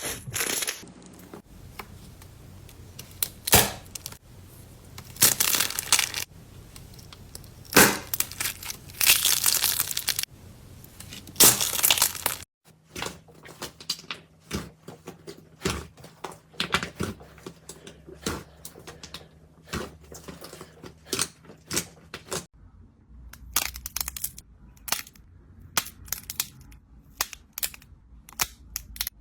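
Slime being squeezed and pressed, giving crunchy crackling bursts about half a second long. After a cut about twelve seconds in come many quick sticky clicks and pops.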